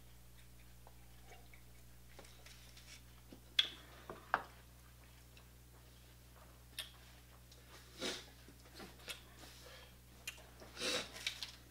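Sparse eating sounds from a seafood boil: a few small clicks and rustles as seafood shells are picked at by hand, and some chewing, with a short cluster of louder ones about ten to eleven seconds in. A low steady hum lies underneath.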